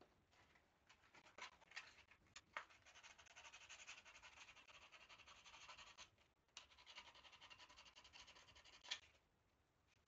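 Fast back-and-forth scraping on a small wooden strip of a model kit, worked by hand with a small tool, in two long runs from about three seconds in with a short break near six seconds. A few light taps of the wooden pieces come before it, and there is a sharp tap as it stops.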